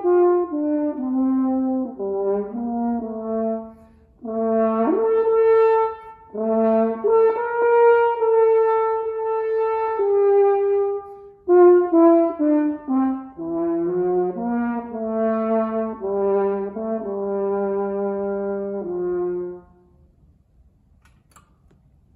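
Solo French horn playing a melody in phrases, with short breaks for breath between them. The last phrase ends on a long held low note, and the playing stops about two and a half seconds before the end.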